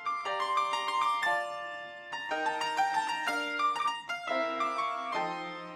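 Background music: a light melody of short plucked or struck notes on a piano-like keyboard instrument.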